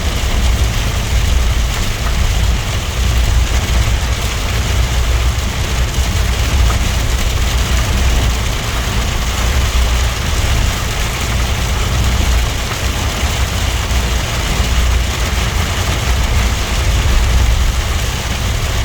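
Suzuki Jimny driving, heard from inside the cabin: a steady low engine and road rumble with an even hiss over it.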